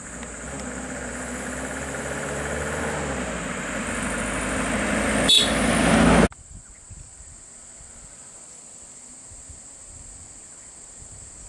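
Toyota HiAce van's engine running as the van drives past close by, growing steadily louder, with a sharp click about five seconds in. The sound cuts off abruptly about six seconds in, leaving a quieter background with a steady high-pitched insect buzz.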